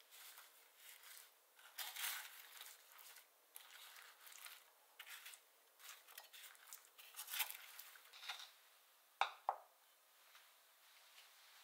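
Spatula folding granulated sugar into whole strawberries in a metal bowl: faint, gritty scraping and crunching of the sugar granules in short strokes. Two sharper knocks come about nine seconds in.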